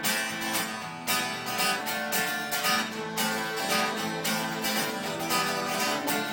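Live acoustic band playing a song's instrumental intro, led by strummed acoustic guitar in a steady rhythm of about two strokes a second.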